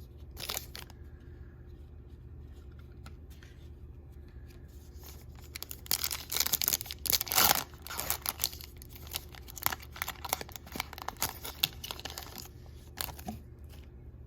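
A trading-card pack wrapper being torn open and crinkled, loudest for a couple of seconds near the middle, followed by a run of light clicks and rustles from the cards being handled.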